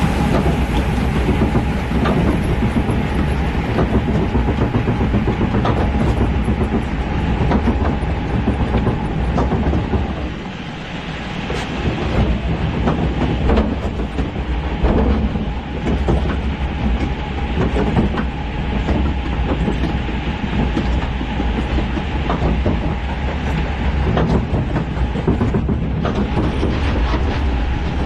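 Log flume ride machinery carrying the log boat: a steady, loud rumbling clatter of many small clanks over a constant mechanical hum. It dips briefly about ten seconds in.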